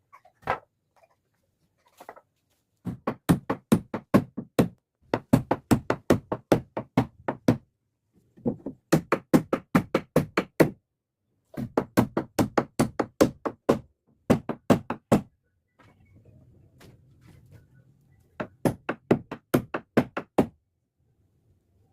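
Rapid hammering on wood: runs of quick, sharp blows at about four to five a second, broken by short pauses, with a quieter scraping stretch shortly before a final run.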